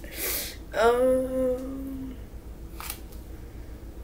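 A woman's voice holding one note for about a second, the loudest sound here, between two short scrapes of a metal spoon scooping granulated sugar from a plastic tub.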